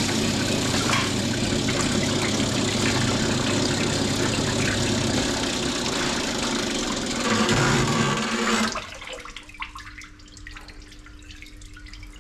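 A vertical cylinder honing machine runs with honing oil splashing from its feed hose while it finishes the bore of a vintage BSA motorcycle cylinder barrel with finer stones. The low motor hum drops away about five seconds in, and the machine cuts off suddenly near nine seconds, leaving a faint steady hum.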